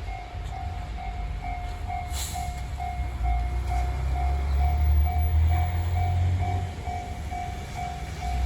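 Japanese railway level crossing warning bell ringing steadily, about two strikes a second. Under it a low vehicle rumble swells in the middle and fades, with a short hiss about two seconds in.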